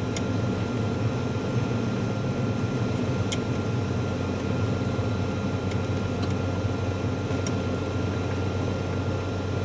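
Cirrus SR22's six-cylinder Continental IO-550 engine running steadily at low taxi power, an even drone with a few faint clicks.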